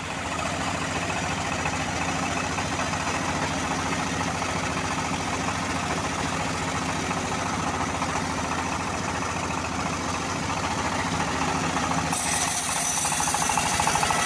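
Homemade band-saw mill running with a steady, fast throb. About 12 seconds in, the blade starts cutting into a teak log and a louder, hissing sawing sound joins the machine noise.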